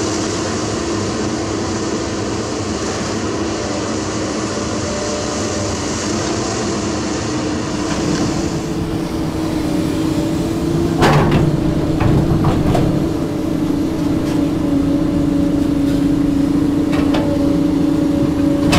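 Komatsu PC200 hydraulic excavator's diesel engine running steadily under load, with a held tone over the drone. A few sharp knocks come about eleven seconds in and again near the end as the bucket digs into rocky dirt.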